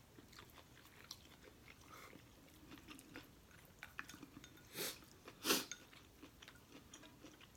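Close-miked chewing and eating of instant noodles: soft wet mouth clicks throughout, with two louder short bursts a little under five seconds in.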